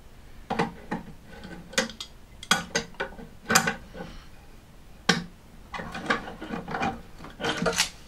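Adjustable spanners and a new brass float valve clinking, knocking and scraping as the valve is turned and tightened onto the inlet shank's coupling nut: a run of irregular metallic clicks and knocks.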